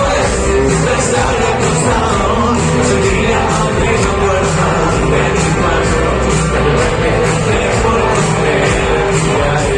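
Rock band playing live at full volume, with a singer's voice over the band.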